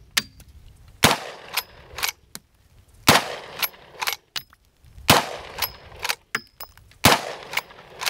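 Four rifle shots about two seconds apart from a mud-caked Uberti 1860 Henry replica in .45 Colt, each followed by the clack of the lever being worked to eject the spent case and chamber the next round. The mud-fouled action keeps cycling and firing.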